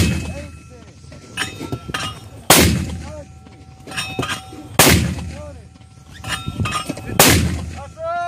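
81mm mortar firing four rounds in quick succession, one loud blast about every two and a half seconds, each followed by a low rumbling tail. Light metallic clinks come between the shots.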